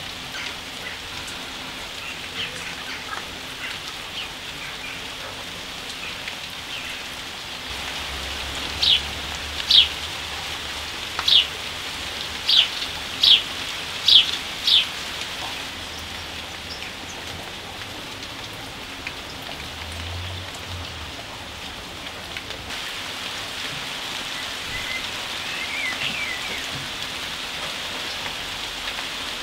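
Steady rain falling on garden foliage. About nine seconds in a bird gives seven loud, sharp, falling calls over about six seconds, and faint chirps come near the end.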